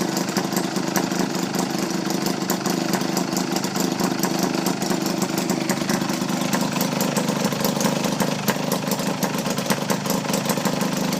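1937 Maytag twin, a two-cylinder two-stroke washing-machine engine, running steadily with fast, even firing. Its exhaust goes through a hose, which keeps it nice and quiet; it seems to run great.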